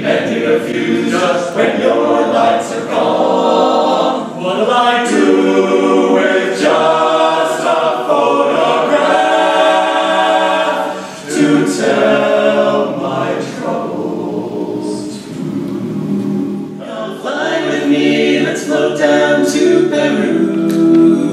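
Men's barbershop chorus singing a cappella in close harmony, with no instruments.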